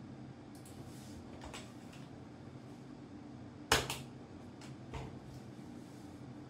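Computer keys clicking: a few light clicks, then one sharp, much louder key click nearly four seconds in as the login link is entered, followed by two softer clicks, over a low steady room hum.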